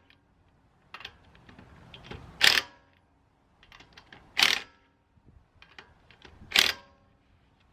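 Ratchet wrench with a 21 mm socket snugging down lug nuts by hand: runs of quick ratchet clicks, with a louder metallic clack about every two seconds, four times in all.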